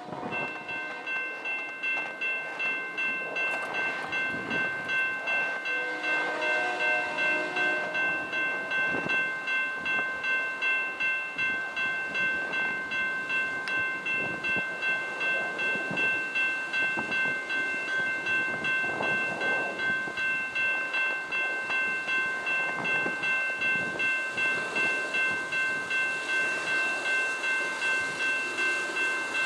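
Railroad grade-crossing bell ringing steadily, about two strokes a second, over wind noise. About six seconds in, the approaching freight train's horn sounds briefly.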